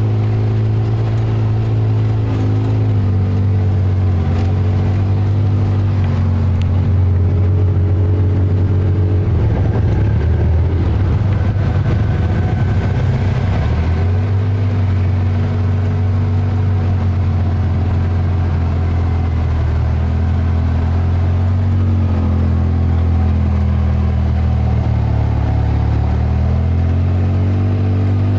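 Polaris off-road vehicle's engine running under way on a trail, its pitch rising and falling as the throttle changes. About a third of the way in there is a rougher, noisier stretch of about five seconds.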